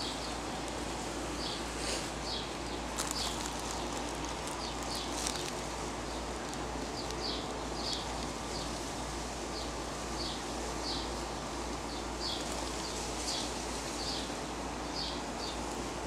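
Short high-pitched chirps, often in pairs, repeating every second or so over a steady background hiss, with a few faint clicks a few seconds in.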